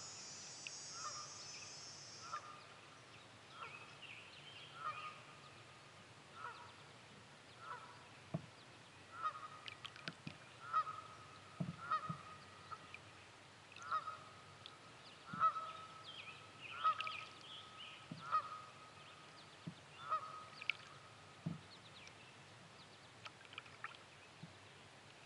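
A goose honking over and over, a call roughly every second or so, with scattered soft knocks. A high insect-like buzz fades out in the first two seconds.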